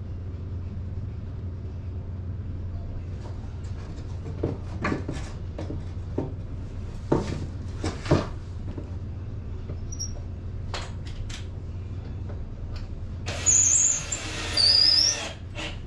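Wooden platform pieces being handled: scattered knocks and light clatter over a steady low hum, then near the end two loud scrapes, each with a high squeal.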